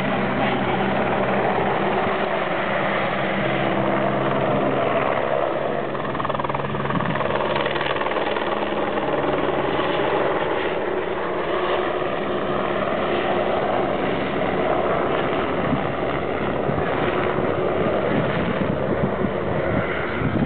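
An engine running nearby, a steady mechanical drone. A low hum is clear for the first eight seconds or so, then fades into a broader rumble.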